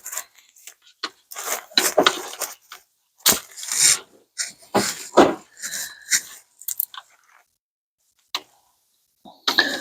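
Irregular clicks, clunks and short rattles of hand tools and engine-bay parts being handled, in scattered bursts with pauses between them.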